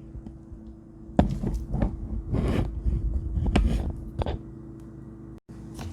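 A whisk stirring and scraping pounded-yam flour and water into a thick paste in a plate, giving irregular knocks and scrapes from about a second in until near the end. A steady low hum runs underneath.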